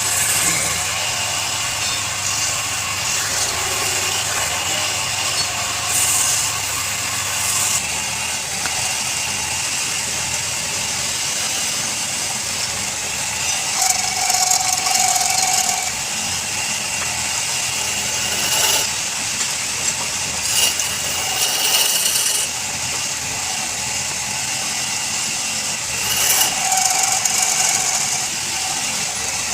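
Wood lathe running with a turning tool cutting the spinning wood, getting louder in several passes of a few seconds each.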